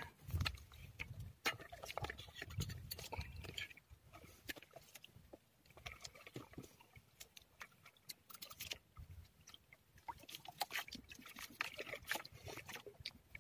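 A person eating with a metal spoon: scattered quiet clicks and scrapes of the spoon on a plate, with soft chewing and slurping.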